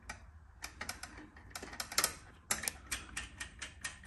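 Quick, light metallic clicks and ticks, irregularly spaced, as a small accessory is threaded by hand onto the threaded end of a MotoSmartLaser frame-measuring rod in a motorcycle's rear axle.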